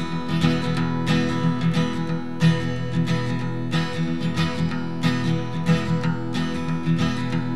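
Background music of a strummed acoustic guitar, steady strokes in an even rhythm.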